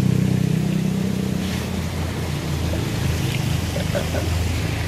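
A small engine running steadily, a low hum that shifts a little lower in pitch about two seconds in, with light splashing of shallow water.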